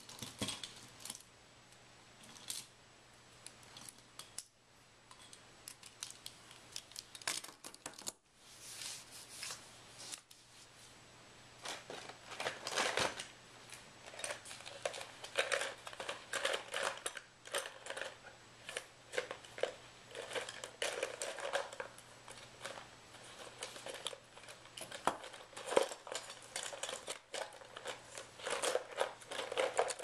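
Irregular small clicks, scrapes and rustles of objects being handled at a table, growing busier from about twelve seconds in, over a faint steady hum.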